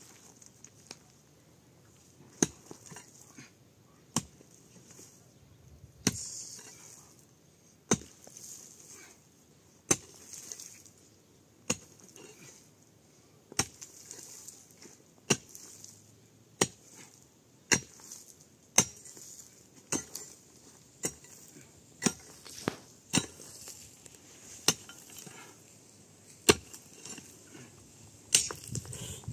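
Repeated sharp chopping strikes of a hand tool, about one every one to two seconds, coming a little faster in the middle.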